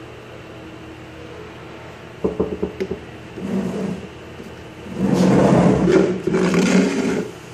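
Plastic honey bucket scraped and shuffled across a table top, loudest for about two seconds near the end, after a quick rattle of knocks about two seconds in. A steady low hum runs underneath.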